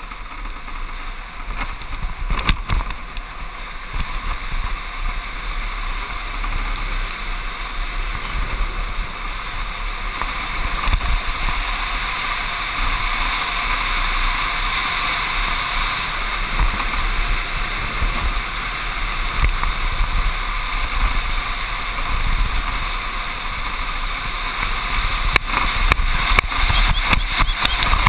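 Wind and tyre noise of a soap box racer coasting downhill, heard from a camera on its nose: a steady rushing noise that grows louder as the car picks up speed, over a low rumble from the wheels on tarmac. A few knocks from bumps in the road come about two seconds in and again near the end.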